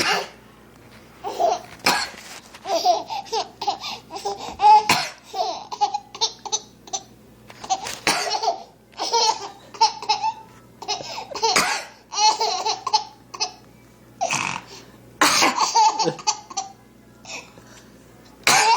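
A seven-month-old baby laughing in bursts of giggles, set off again and again by a woman's short, sharp coughs every few seconds.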